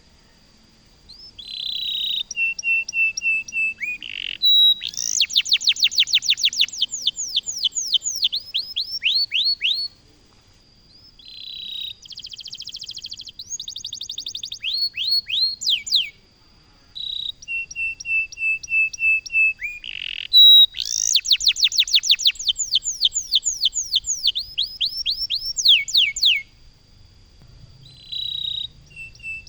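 Domestic canary in full song: three long bouts of rapid trills, quick runs of repeated notes and fast sweeping notes, with two short pauses between them. A faint steady high tone sits underneath.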